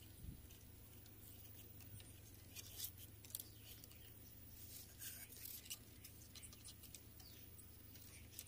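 Faint, irregular scraping and light ticking of a knife blade drawn along coconut leaf midribs, stripping off the leaf to make broom sticks.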